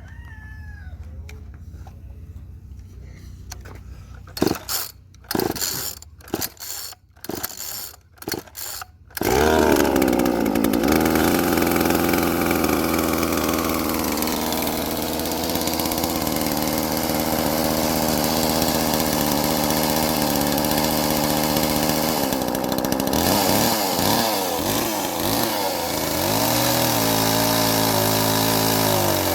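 A gas chainsaw sputters in several short bursts, then catches about nine seconds in and runs at high revs through a test cut into a large log. Its pitch drops and wavers as the chain bites into the wood. The chain's sharpening angle is wrong, so it leaves fine sawdust instead of long chips.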